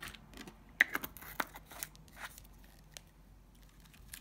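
Irregular light clicks and taps of long acrylic nails and small plastic acrylic-powder jars being handled and set down, the loudest just under a second in, thinning out after the first half.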